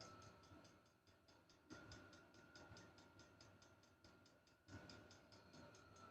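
Diesel air heater's fuel dosing pump ticking faintly and evenly, about four clicks a second, as it meters fuel into the running heater. A faint steady tone swells briefly twice.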